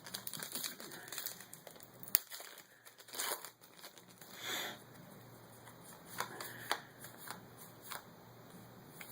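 Foil booster-pack wrapper crinkling and cards being handled: irregular faint rustles with scattered clicks, one sharp click about two seconds in.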